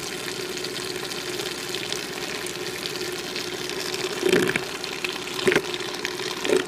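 Countertop blender running steadily, its blade churning a thick feta-and-water mixture into a whipped dip. About four, five and six and a half seconds in come three short louder bumps as a silicone spatula scrapes down the sides of the jar.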